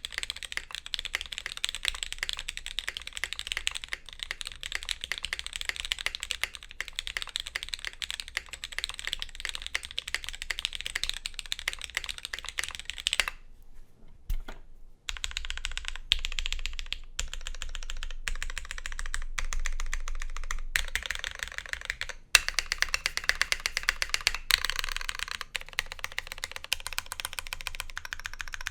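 Fast typing on a custom friction-fastened mechanical keyboard with an aluminum plate, lubed vintage black linear switches and DCS Rootbeer keycaps, a steady run of key clacks. The typing stops briefly about halfway through, then resumes in short runs with small gaps and one sharper, louder key strike.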